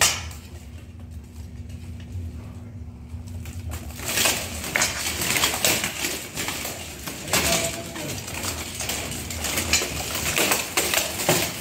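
Steel swords striking steel plate armour, with armour plates clanking, in a dense irregular clatter of hits that starts about four seconds in. Before that there is a low steady hum, opened by a single sharp knock.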